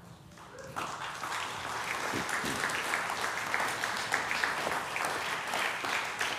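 Church congregation applauding at the close of a sermon, the clapping starting about a second in and continuing steadily.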